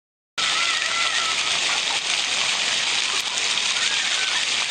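Many jets of a ground-level plaza fountain spraying and splashing onto wet paving, a dense steady hiss of falling water. It cuts in after a brief silence at the very start, with faint voices over it.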